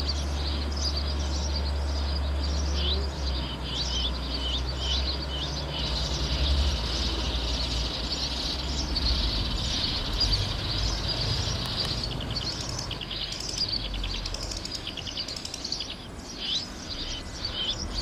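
Sparrows chirping and twittering in a dense, rapid, unbroken stream: a sparrow-call lure track played through a loudspeaker to draw the birds down to glue-trap sticks. Under it is a steady low rumble of background noise.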